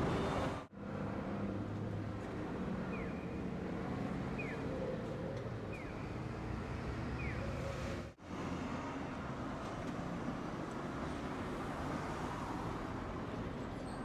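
Street traffic noise, with vehicles running steadily on the road. The sound cuts out briefly twice.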